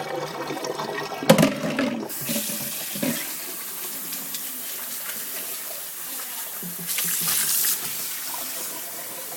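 A clunk, then water running from a tap into a dog's water bowl as it is rinsed out, the stream getting louder for a moment near the end.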